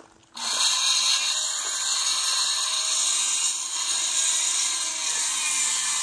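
Power saw starting abruptly about a third of a second in and cutting steadily, a loud, high-pitched cutting noise that runs on without a break.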